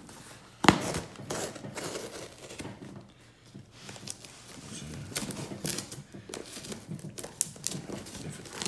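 Cardboard shipping box being opened by hand: tape being torn and peeled and cardboard flaps crinkling and scraping in short irregular rustles. A sharp knock under a second in is the loudest sound.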